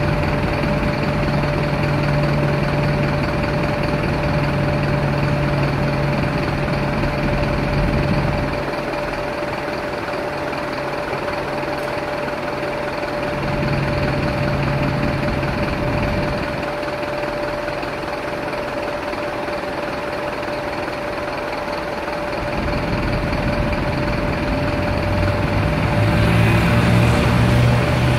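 Engines of a convoy of police vehicles driving past one after another: a coach bus, armoured trucks and police SUVs. The engine drone swells and fades as each goes by and is loudest near the end.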